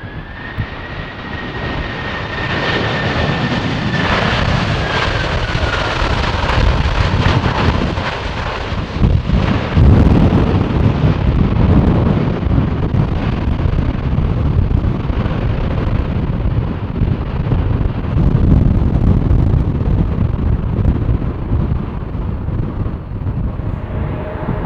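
Airbus A330-300 jet airliner arriving close by: a high engine whine that slowly drops in pitch as it passes, then a loud jet roar with deep rumble that peaks about ten seconds in and carries on, with some wind on the microphone.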